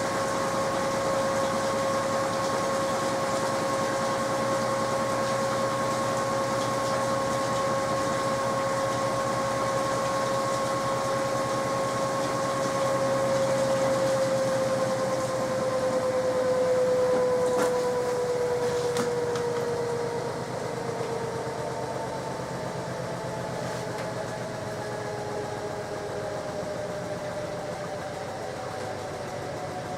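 SMEG 11 kg front-loading washing machine spinning, its drum motor giving a steady whine that begins to fall slowly in pitch a little before halfway as the drum slows down.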